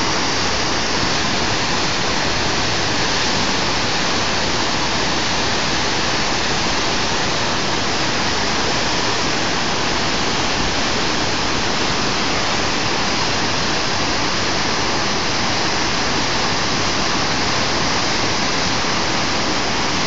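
A mountain river in flood, swollen by violent downpours, its muddy whitewater rushing and pouring over a drop in the riverbed: a loud, steady rush of water with no change throughout.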